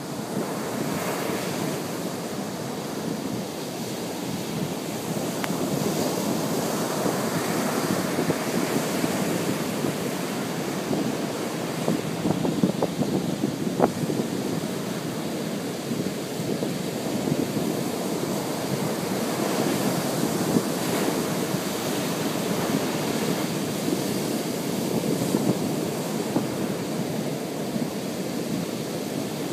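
Surf washing onto a beach, a steady rushing wash that swells and eases slightly, with wind buffeting the microphone.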